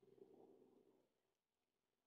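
Near silence: faint room tone, with a brief faint low sound in the first second.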